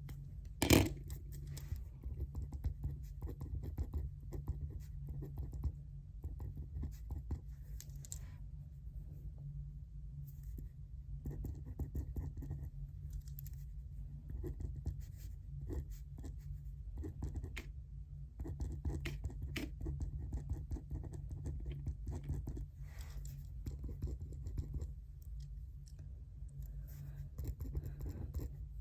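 Handwriting while studying: short, scattered scratchy strokes of a pen on paper, over a steady low hum. One sharp knock about a second in.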